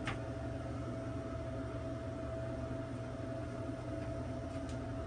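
Newly installed Ventline bathroom ceiling exhaust fan running steadily and drawing a good draft: an even rush of air over a low hum and a constant thin tone. There is a faint tick right at the start and another near the end.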